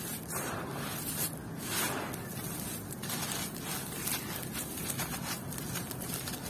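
Hands squeezing and crumbling handfuls of gritty red dirt, a crunchy grinding of grit and small gravel as it pours back onto the pile. Several short hissing bursts in the first two seconds, then many small sharp ticks of falling grains.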